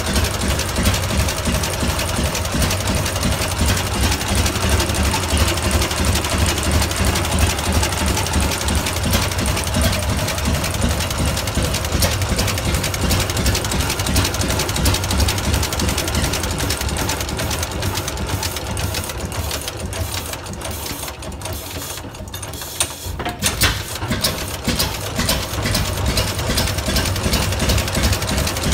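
Rumley OilPull 16-30 H two-cylinder kerosene tractor engine running with a rapid, even firing beat, on its first run after the magneto was retimed. About two-thirds of the way through it drops off for a few seconds, with a couple of sharp bangs, then picks back up to full beat.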